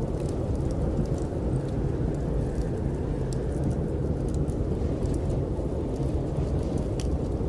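Snowstorm wind blowing as a steady low rumble, with scattered small crackles and pops of a wood fire in a fireplace.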